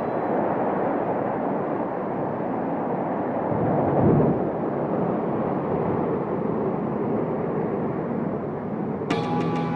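Soyuz rocket engines at liftoff: a steady, noisy rumble without any clear pitch, swelling about four seconds in. Music comes in near the end.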